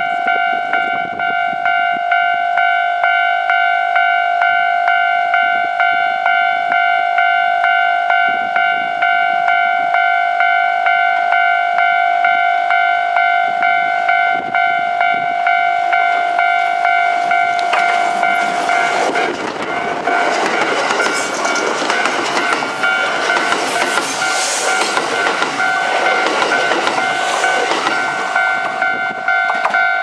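Japanese level-crossing warning bell ringing in a steady, even pulse. About eighteen seconds in, a Kintetsu limited express made up of a 12200-series set and a 22000-series set runs through the crossing, its passing rush and wheel clatter lasting about ten seconds before dying away under the bell.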